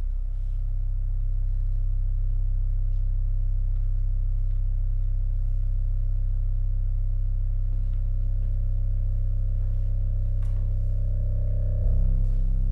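A chamber ensemble with electronics begins a contemporary piece with a deep, steady drone that starts suddenly on the downbeat. A fainter higher tone is held above it, and the sound swells slightly near the end.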